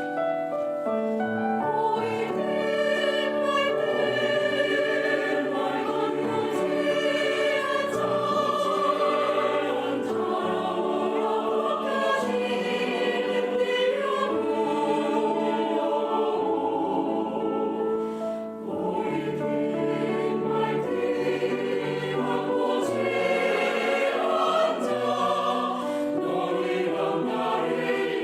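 Mixed choir of sopranos, altos, tenors and basses singing a Korean choral song in several parts, with a brief break between phrases about two-thirds of the way through.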